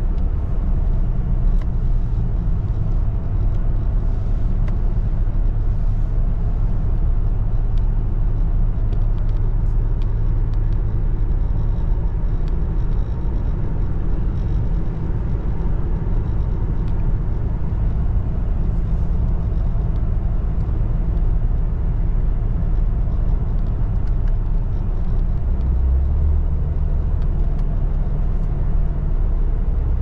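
Steady engine hum and road noise from inside the cab of a 2023 Toyota Tacoma SR with the 2.7-litre four-cylinder engine, cruising at a steady speed.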